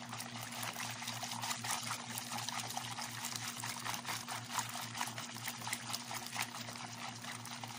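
Wire whisk beating thin, watery kutsinta batter in a plastic bowl: fast, continuous sloshing and splashing with a dense patter of small clicks from the whisk wires.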